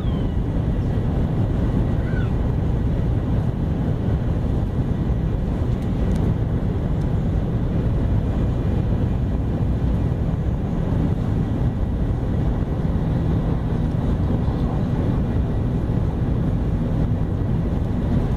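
Steady rumble and rush inside the cabin of a Taiwan High Speed Rail train running at a little over 300 km/h.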